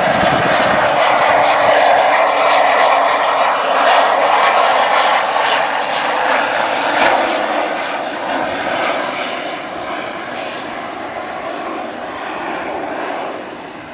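Pilatus PC-12 single-engine turboprop touching down and rolling out on the runway: a loud, steady turbine and propeller noise that fades over the last half as the aircraft rolls away.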